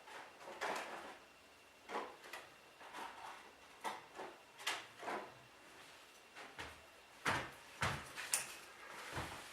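Rummaging and handling noise: a dozen or so small knocks, clicks and rustles at uneven intervals, a little louder near the end, as spare drone propellers are taken out and handled.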